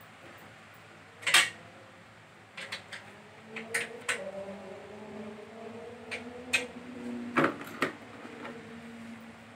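Scattered sharp clicks and clacks of hard plastic as the treadmill and its parts are handled, about eight in all. From a few seconds in there is a faint hum under them whose pitch slowly drifts.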